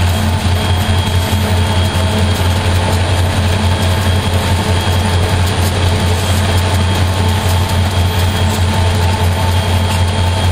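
EMD SD40-2 diesel-electric locomotive's 16-cylinder two-stroke engine running steadily under power at cruising speed, a continuous low drone. It is heard from a vehicle driving alongside, so road and wind noise from that vehicle is mixed in.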